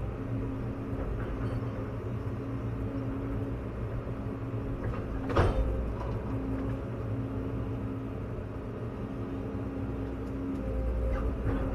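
Caterpillar 316E L excavator's turbo diesel engine running steadily under the operator's hydraulic work, heard from inside the cab, with a single sharp knock about five and a half seconds in.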